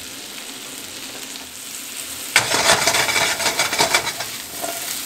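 Sliced mushrooms frying in a pan with a steady sizzle. About two seconds in the pan is shaken and the mushrooms are tossed, giving a loud clatter and a louder sizzle for about two seconds.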